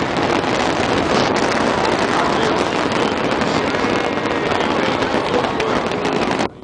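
Large fireworks display going off overhead: many sharp pops and bangs of bursting shells running together into a continuous loud crackle, cutting off suddenly near the end.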